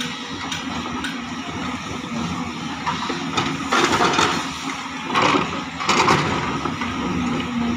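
JCB tracked excavator's diesel engine running under hydraulic load as the bucket digs into earth, with several short louder noisy surges about four, five and six seconds in.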